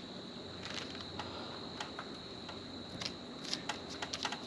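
Masking tape being pulled, torn and pressed on by hand, heard as faint scattered crackles and ticks that come more often near the end, over a steady high-pitched tone.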